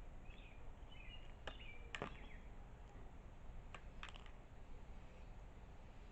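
Small birds giving short, soft chirps in the first couple of seconds, with a handful of sharp clicks or taps scattered through.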